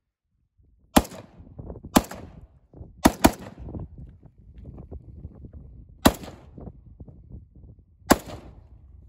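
AK-pattern rifle fired six times in aimed single shots, roughly a second apart at first, with a quick double near the middle and two more spaced shots after it.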